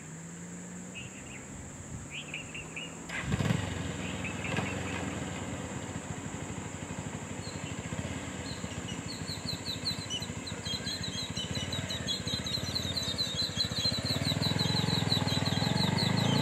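A motor vehicle's engine starts abruptly about three seconds in and keeps running with an even low pulsing, growing louder toward the end. A steady high insect buzz runs underneath, and birds chirp repeatedly over the engine in the second half.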